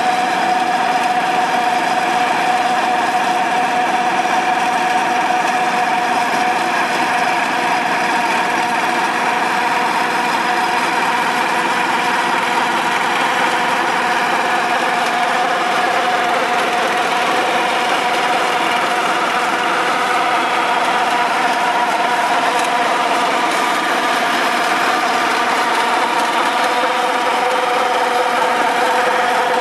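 Small petrol engine of a walk-behind Eliet turf machine running at a steady speed as it is pushed across grass, one even note with no change in pace.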